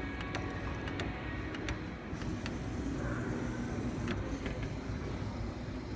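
Sugarloaf claw machine running during a play as its claw moves: a steady low hum with a few faint clicks.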